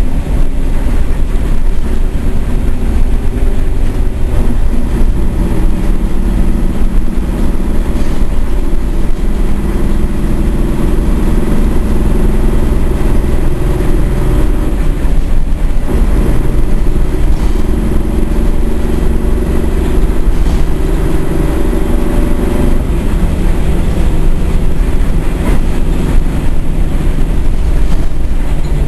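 Diesel engine of a Nissan Diesel U31RCN city bus running under way, heard from inside the cabin: a loud, steady rumble whose engine note rises and falls several times as the bus drives.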